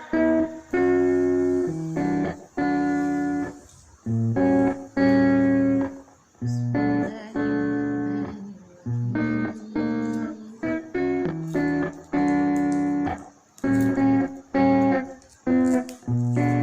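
Background pop music in an instrumental break without singing: guitar chords, each struck and left to fade, about one a second.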